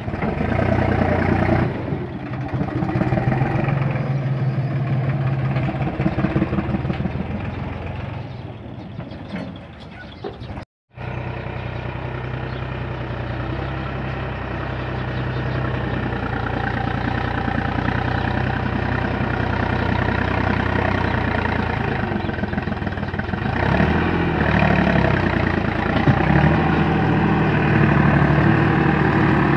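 Deutz-Fahr Agrolux 50 tractor's diesel engine running steadily under load while dragging a rear blade through dry soil. It cuts out briefly about a third of the way through and grows a little louder near the end.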